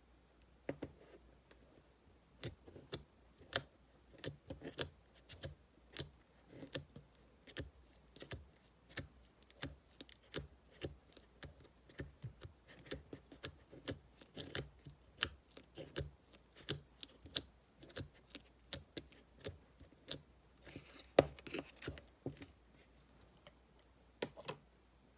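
Slime being pressed and squeezed by hand, giving an irregular run of small sharp clicks and pops, about two to three a second, with one louder snap near the end.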